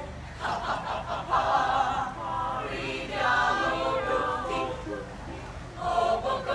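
Mixed choir of young men and women singing together unaccompanied, in phrases with short breaks between them.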